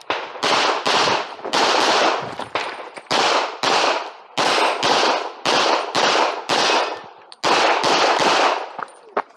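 Semi-automatic pistol fired in rapid strings at close range, about three to four shots a second with short pauses between strings: a shooter running a timed IPSC course of fire.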